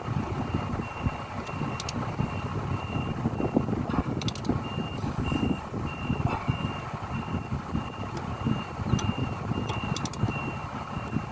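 Reversing alarm beeping, a high-pitched tone repeating evenly and quickly, over a steady low machinery rumble, with a few sharp clicks.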